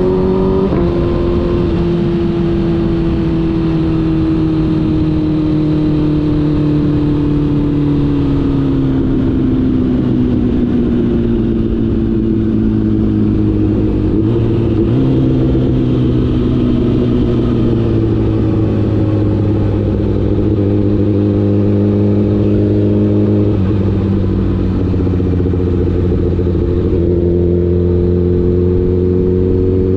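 Honda CBR1000RR's inline-four engine running on the move, over a steady rush of wind and road noise. The engine note sinks slowly for about the first half, jumps up about halfway through, drops again a little later and rises once more near the end.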